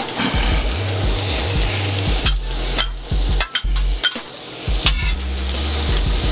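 Diced onions and red bell pepper sizzling steadily on a hot steel flat-top griddle. A few sharp taps and scrapes of a metal spatula on the steel come from about two seconds in, as the pepper is added and spread.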